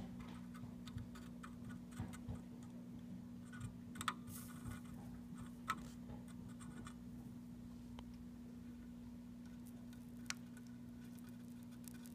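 Faint scattered ticks and scratches from a soldering iron tip and solder wire working a joint on a circuit board while a replacement stepper motor's pins are soldered in. A steady low hum sounds underneath.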